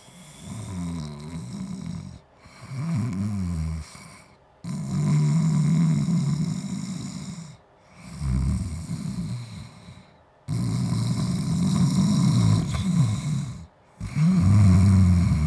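Calico cat snoring in its sleep: six long snores in a row, each a second or two long, with short pauses between them.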